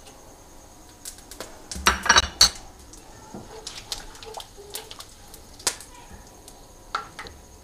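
A metal utensil clattering against a kadai in a quick run of knocks about two seconds in, followed by scattered small clicks and pops as whole spices fry in hot oil.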